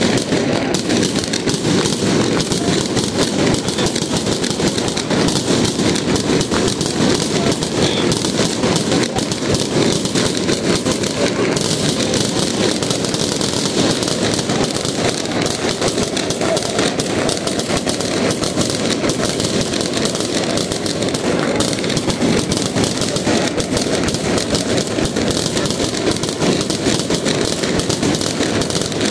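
Fireworks display: a rapid, unbroken barrage of bangs and crackling from many aerial shells bursting at once.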